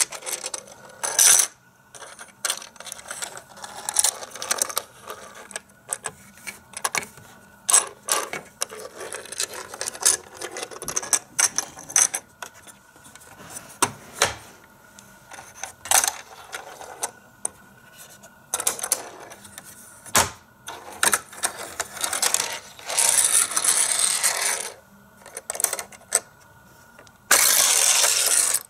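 A plastic Micro Machines racing playset being handled: tiny diecast race cars and plastic track parts clicking and knocking against each other, broken by several longer stretches of rattling from the set's plastic mechanism, the longest near the end.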